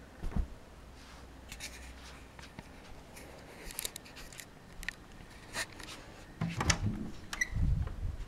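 Handling noises: scattered light clicks and rustles, a dull thump just after the start, and a cluster of knocks and low thumps near the end.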